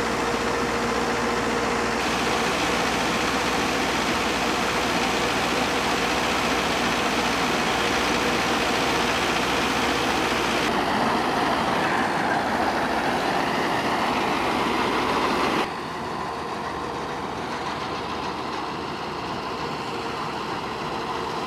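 Mahindra Arjun Novo tractor-mounted combine harvester running steadily, its engine and machinery making a continuous dense noise while the unloading auger pours grain. About sixteen seconds in, the sound changes abruptly and becomes somewhat quieter, as the harvester works in the field.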